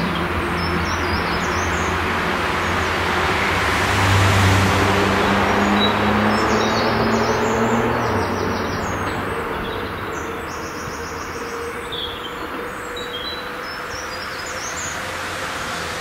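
A diesel regional train running away along the line, its engine hum and rolling noise loudest about four to six seconds in, then fading after about eight seconds as it goes into the distance. Birds chirp through the second half.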